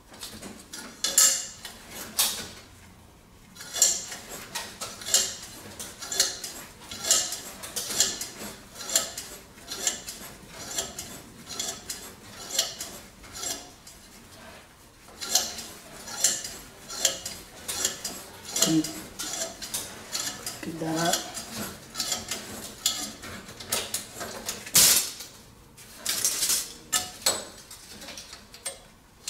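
Repeated metallic clinking and scraping from a hand tool working the copper pipe end of a baseboard heater's fin-tube element, about one to two sharp strokes a second, unevenly spaced, with a brief squeak or two near the middle and one louder clank toward the end.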